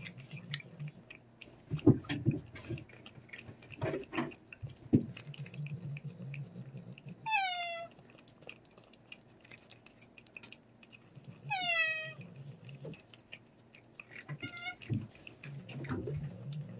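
A cat licking a Churu paste treat from a squeezed tube, with wet lapping and smacking clicks. A cat meows twice, each a short call falling in pitch, about seven and twelve seconds in, then once more faintly.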